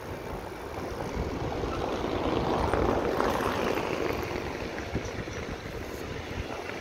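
A freight train hauled by a Siemens Vectron electric locomotive passing by: the steady rolling noise of the locomotive and its wagons swells to its loudest about three seconds in, then eases off.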